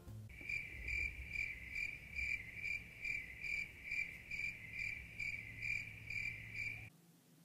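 Cricket-chirp sound effect: a steady, high, even chirp repeating about two to three times a second. It starts abruptly and cuts off abruptly near the end.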